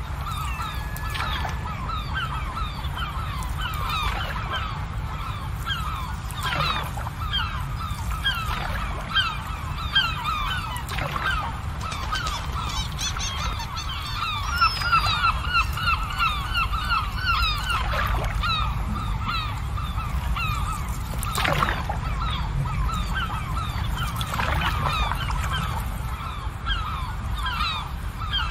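A large flock of birds calling continuously: many short, overlapping calls at once, over a steady low rumble.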